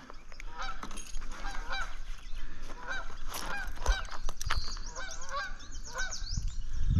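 Birds calling: one call repeated about twice a second, with higher chirps and whistles over it, and a couple of sharp knocks near the middle.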